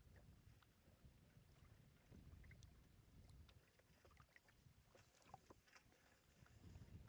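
Near silence: a faint low wind rumble on the microphone, with scattered light ticks and taps from a kayak on the water.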